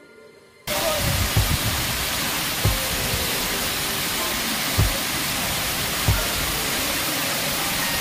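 Waterfall pouring into its plunge pool: a loud, steady rush of falling water that cuts in suddenly under a second in, with a few short dull thumps. Faint background music is heard just before the water comes in.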